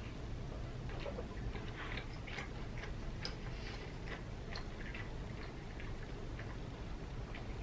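Close-up chewing of a small cheeseburger: a run of short, wet clicks and smacks from the mouth, over a steady low hum.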